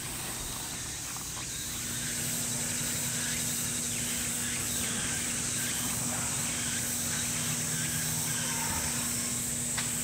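Summer outdoor ambience with insects chirping in a constant high-pitched hiss, joined about a second and a half in by a faint steady low hum.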